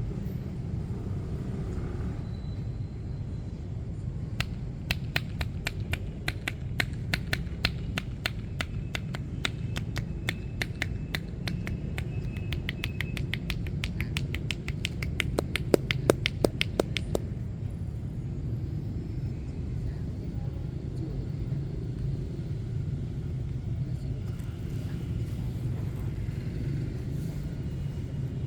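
Massage percussion strokes: rapid slapping of hands on the body, about five a second, starting a few seconds in and stopping about two-thirds of the way through. Steady low rumble of street traffic underneath.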